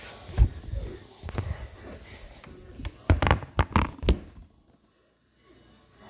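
Phone handling noise: knocks and thumps as the phone is jostled close to its microphone, a few scattered ones at first, then a quick cluster of about five sharp knocks around three to four seconds in.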